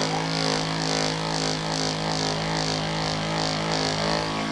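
A small electric machine running steadily: a constant hum with a rhythmic high pulsing about three or four times a second.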